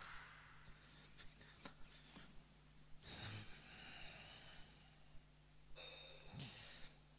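Near silence: room tone with a faint steady hum, a few small clicks, and soft breaths close to the microphone.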